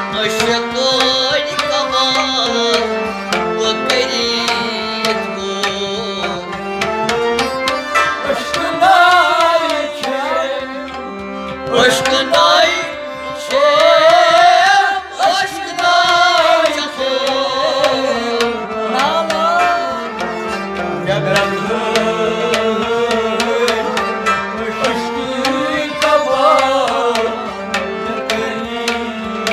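Live Kashmiri Sufiyana music: a male voice sings a gliding melody over harmonium, bowed sarangi and rabab, with hand-drum strokes keeping a steady beat.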